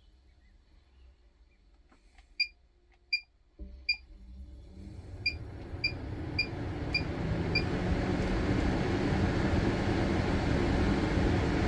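MaxxAir roof vent fan in a camper trailer being switched on: three short beeps from its controls, then the fan motor starts about three and a half seconds in, and five quicker beeps step its speed up as the rushing fan noise grows louder. The fan is set to draw air in to pressurize the trailer.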